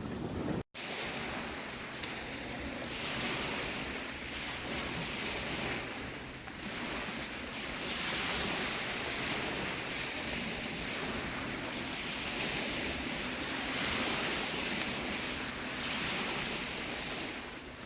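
Steady rushing of wind and water, swelling and easing every couple of seconds. The sound drops out for an instant under a second in.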